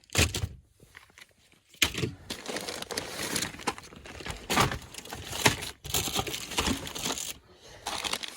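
Plastic-wrapped fireworks packs being handled and shifted around, crinkling and rustling in irregular bursts, with a short sharp rustle at the start.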